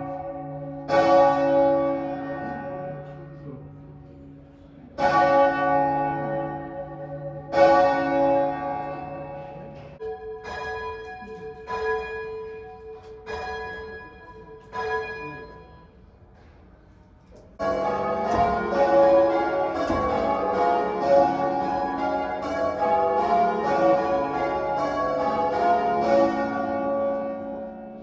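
Tower bells ringing. One heavy bell strikes three times, a few seconds apart. Then a lighter bell strikes four times at an even pace. About two thirds of the way in, many bells sound in quick succession, as in change ringing, stopping just before the end.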